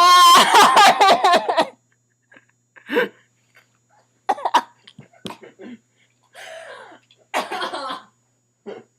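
A person burping: one long, loud burp of about a second and a half with a wavering pitch. It is followed by several shorter, quieter vocal sounds.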